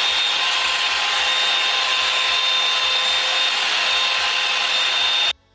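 Revlon One-Step Volumizer hair dryer brush running steadily: a rush of blown air with a high motor whine, cutting off suddenly near the end.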